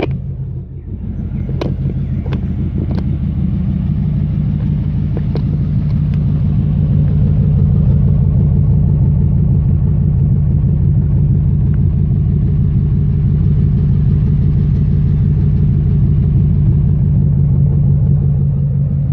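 2003 Dodge Ram 1500's 5.7 HEMI V8 running at a steady idle through a straight-piped, side-exit 3-inch stainless exhaust. The level dips briefly under a second in and builds back over the next few seconds, with a few sharp clicks near the start.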